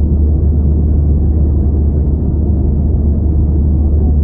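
Steady low rumble of an Airbus A320's engines and rushing air, heard inside the passenger cabin.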